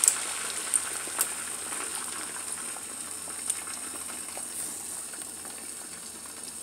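Beaten eggs sizzling in a hot skillet, the steady sizzle slowly dying down, with a few light clicks.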